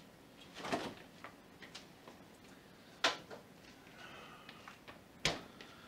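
Household refrigerator door pulled open with a click about three seconds in, a bowl set on a shelf with faint rattling, and the door shut with a sharp knock a little after five seconds.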